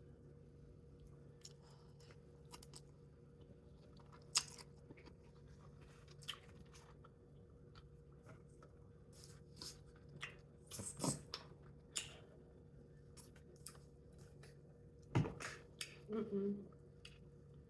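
Close-miked chewing and mouth sounds of someone eating noodles and salmon: soft wet smacks and clicks, with a few louder bites about 4, 11 and 15 seconds in and a brief hummed sound near the end. A faint steady hum lies underneath.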